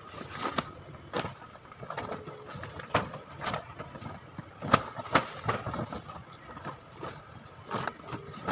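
Rustling and crinkling of a large printed plastic shopping bag being shaken out and folded, with several sharper clicks and flaps as it is handled.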